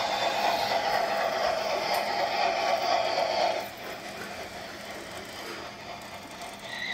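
Märklin BR06 model steam locomotive and its coaches running along the layout track with a steady mechanical clatter, which drops in level about halfway through. Near the end a steady high-pitched tone sets in.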